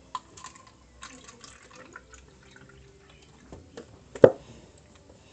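Fruit drink being poured from a carton into a plastic cup: a faint liquid trickle with small clicks, then one sharp knock about four seconds in.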